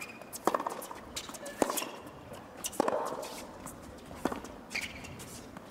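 Hard-court tennis rally: four crisp racket strikes on the ball, about one every second and a half, with a short shoe squeak near the end.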